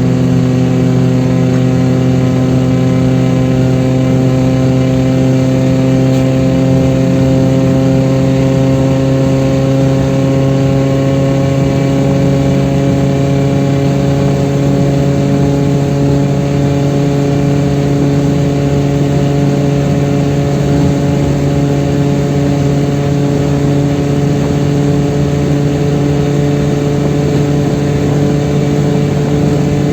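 Chevrolet Kadett 1.8's naturally aspirated four-cylinder engine running hard and steady at high speed, its pitch creeping slowly upward as the revs build.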